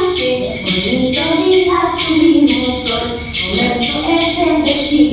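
A woman's voice singing a children's goodbye song, with a steady jingling percussion beat.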